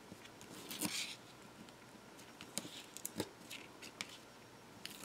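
Quiet handling of cardstock and double-sided tape: a brief rustle about a second in, then a few small scattered taps and ticks as the tape is laid onto a paper tab.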